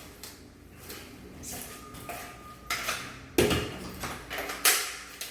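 Small metal parts clinking and knocking as a shower valve's trim plate and its screws are handled, with a few sharper knocks in the second half.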